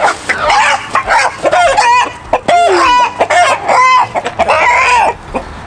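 Young rooster squawking loudly in alarm as it is grabbed, a rapid string of harsh calls, several a second.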